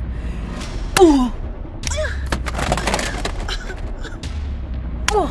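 Slaps to the face, each followed by a woman's short pained cry that falls in pitch. The loudest hit and cry come about a second in, a quick run of sharp hits follows in the middle, and another slap with a cry comes near the end.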